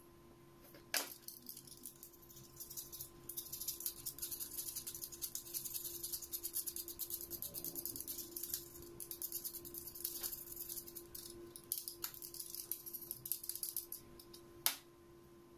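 Graphite pencil scratching across drawing paper in quick repeated hatching strokes, with a sharp tap as the pencil meets the paper about a second in and another near the end.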